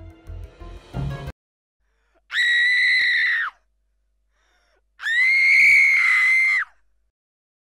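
Eerie film music cuts off about a second in, then two long, high-pitched screams follow, the second longer than the first.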